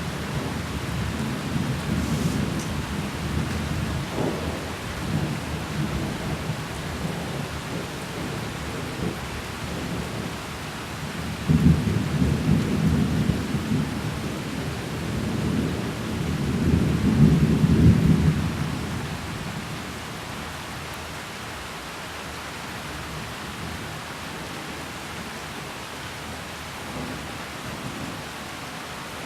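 Thunderstorm: steady rain with rolling thunder. One low rumble breaks in sharply about twelve seconds in and a louder one swells a few seconds later, then the thunder dies away, leaving the rain.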